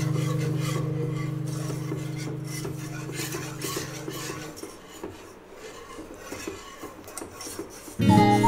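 Wire whisk scraping and stirring round a saucepan of white sauce made from milk and flour, in repeated quick rasping strokes. A held music chord fades out over the first half, and guitar music comes back in near the end.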